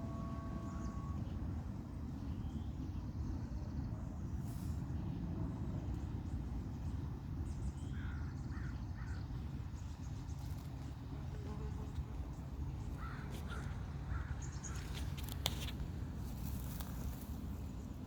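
A steady low rumble with a few short bird calls, about eight and thirteen seconds in, and a cluster of sharp clicks near the end.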